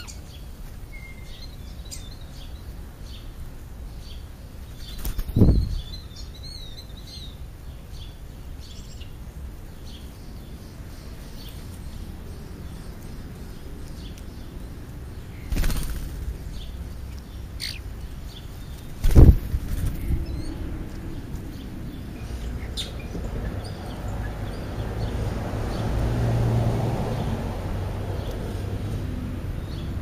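Wings of birds flapping close by as they land and take off: three short loud flurries, about five seconds in, around sixteen seconds and the loudest near nineteen seconds. A few faint high chirps come in between.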